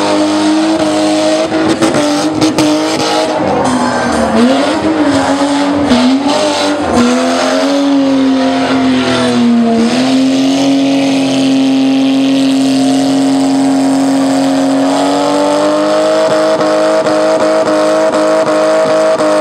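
BMW E30 saloon's engine held at high revs while the car spins on dirt, the pitch wavering up and down at first, then holding steady from about halfway with a slight rise near the end, over the noise of spinning tyres.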